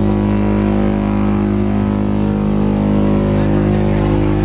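A deep, loud horn blasting steadily at one unchanging pitch.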